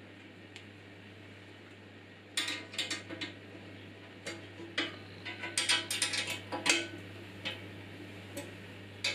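Irregular small metallic clicks and clinks as metal parts and a hand tool are worked at the bandsaw's table, starting a couple of seconds in, over a faint steady low hum.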